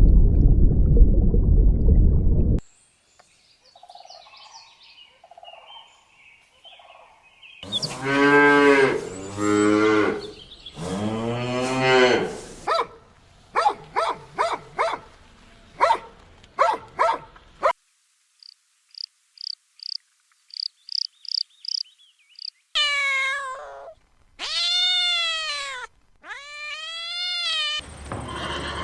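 Cow mooing in a few long, low calls, the loudest sound here. Before it, a loud low rushing noise cuts off suddenly about two and a half seconds in. After it come a run of sharp clicks, a quick series of high chirps, and three short arching cries near the end.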